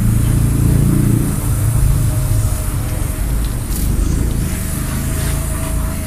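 Water from a garden hose spray nozzle running and splashing onto a wet dog and the concrete floor, over a steady low rumble.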